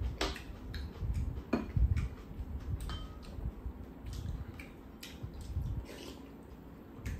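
A metal spoon tapping and scraping against a ceramic rice bowl in irregular clicks, with a few sharper clinks, over chewing.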